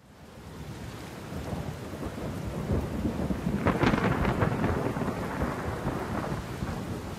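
Steady rain with thunder, fading in at the start and building, with a crackling peak of thunder about halfway through.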